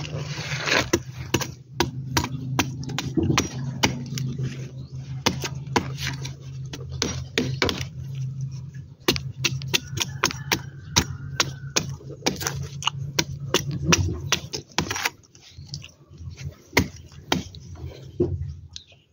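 Machete chopping into the soft heart of a coconut palm: dozens of quick, sharp cutting strikes at an uneven pace, with a steady low hum underneath.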